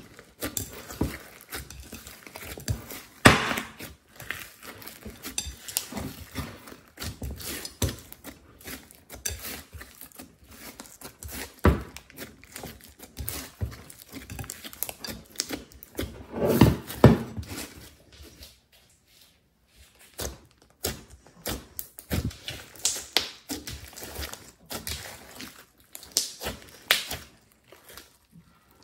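Thick glitter slime squeezed, pressed and stretched by hand in a glass bowl, giving an irregular stream of sticky clicks, pops and squelches. A louder run of squelching comes a little past halfway, then a short quieter pause.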